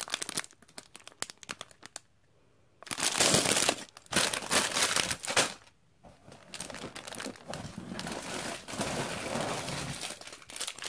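Clear plastic Lego parts bags crinkling as they are handled, in several bouts with short pauses between them.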